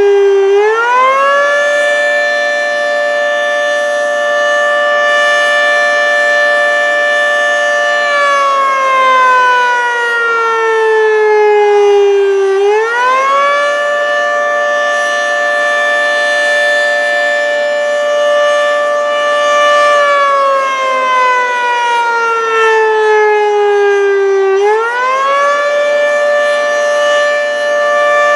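Federal Signal 3T22A three-tone outdoor warning siren sounding a weekly test, its chord winding up quickly to full pitch, holding about seven seconds, then sliding down over about four seconds before winding up again. It does this three times, and the level swells and dips as the head rotates.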